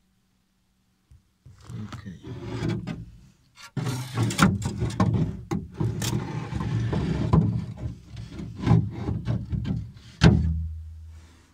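Scraping, rubbing and repeated knocks of a phone being moved around inside a kayak's hull, brushing against the hull and its frame strips. It starts about a second and a half in and stops abruptly near the end.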